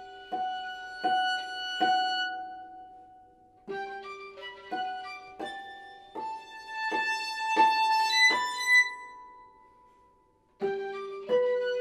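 Violin and harp duo playing: plucked harp notes ringing under held violin notes, with a short lull about three seconds in. The sound dies away almost to silence and both instruments come back in near the end.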